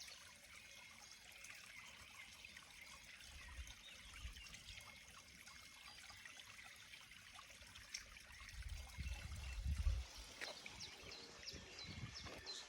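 Faint trickling of a mountain stream, with a low rumble swelling up and dying away about nine seconds in.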